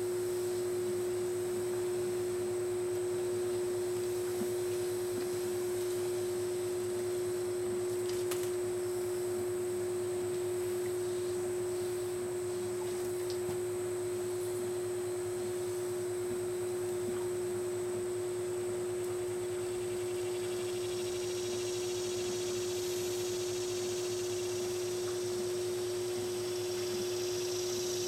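Steady, unbroken humming tone with a fainter low hum beneath it. A faint high hiss joins it about two-thirds of the way through.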